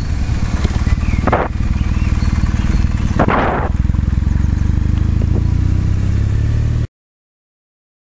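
Kawasaki W650's air-cooled parallel-twin engine running at low road speed, with two brief bursts of rushing noise about a second and three seconds in. The sound cuts off suddenly near the end.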